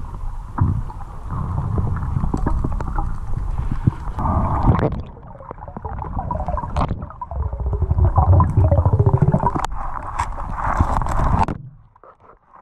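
Underwater sound as heard through a GoPro housing: a steady low rumble of the river current with gurgling and crackling bubbles and occasional knocks, dropping away sharply near the end.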